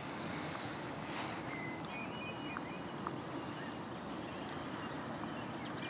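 Steady low outdoor background noise with faint bird chirps, a few about two seconds in and a cluster near the end.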